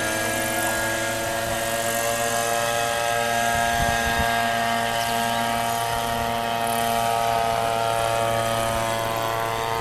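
TSK radio-controlled model helicopter flying low past, its engine and rotor giving a steady, droning whine.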